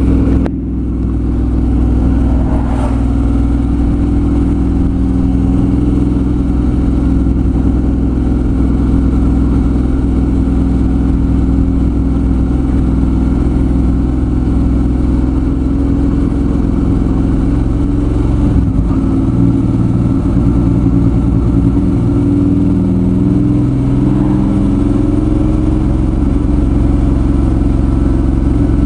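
Suzuki V-Strom 650's V-twin engine running, its note shifting in pitch several times in the second half.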